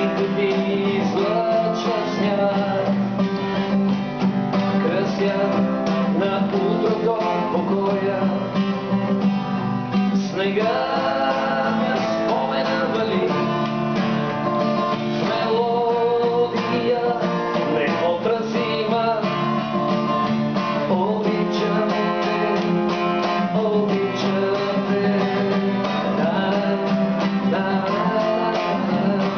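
Acoustic guitar strummed steadily while a harmonica on a neck rack plays held, bending melody notes, an instrumental break between sung verses.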